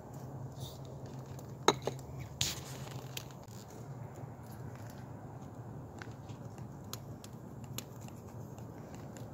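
Handling noise: a sharp click about a second and a half in, a short rustle just after, and a few fainter ticks, over a steady low hum.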